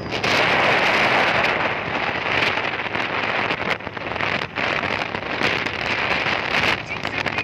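Wind buffeting the microphone of a motorbike riding at speed on a highway: a loud, even rush with short dips, over the road and traffic noise of the ride.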